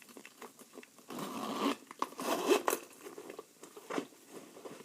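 Packaging crinkling and rustling as the bag's accessories are unwrapped, in two bursts about a second apart, with a few light clicks.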